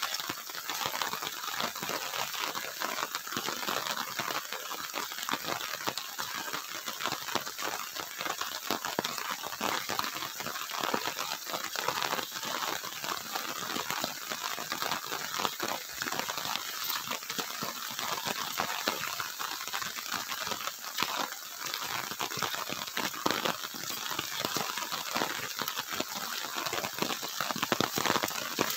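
Footsteps on a wet, muddy dirt track and the rustling of weeds brushing against the legs as someone walks, a continuous irregular crunching and swishing.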